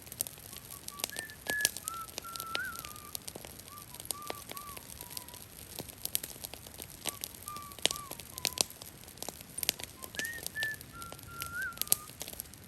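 A series of short whistled notes sliding between pitches, a little phrase that comes round again near the end, over the steady crackle and ticking of a wet brush fire burning in the rain.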